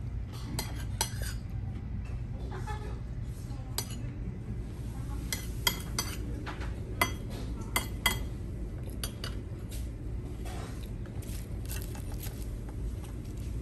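Cutlery and dishes clinking at a meal: scattered sharp taps of utensils against plates and bowls over a steady low hum, with a few louder clinks in the middle.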